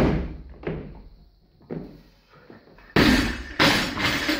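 Loaded barbell with bumper plates dropped from overhead after a clean and jerk, hitting the platform with a loud thud and bouncing twice more with fading thuds. About three seconds in comes a louder, noisier burst of knocks that lasts over a second.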